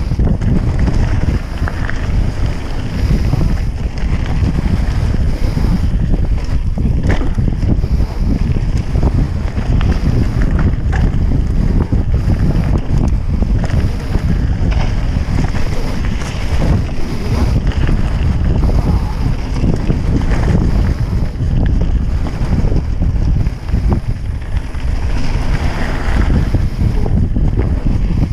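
Wind buffeting the microphone of a mouth-held action camera on a mountain bike descent, with the rider's breathing close to the microphone and scattered rattles and clicks from the bike and tyres on gravel.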